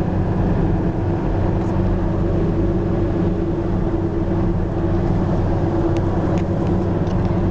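Steady engine and road noise of a car in motion, heard from inside the cabin as an even low hum, with a few faint clicks near the end.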